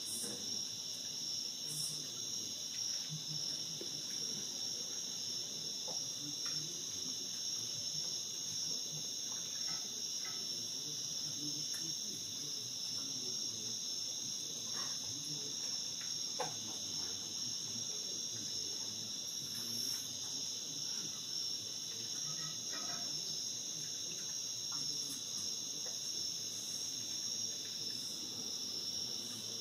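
Steady chorus of night-singing insects: a continuous high-pitched trill at two pitches, unbroken and even in level.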